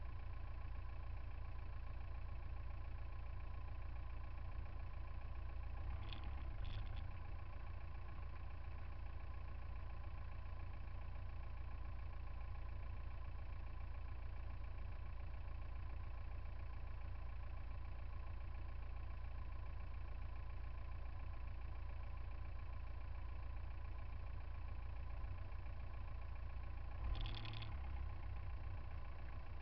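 Car engine idling, a steady low rumble with an even hum above it. A couple of brief clicks about six seconds in and another near the end.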